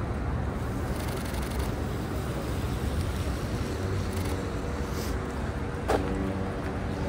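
Street traffic noise: a steady low rumble of vehicles, with one sharp click about six seconds in.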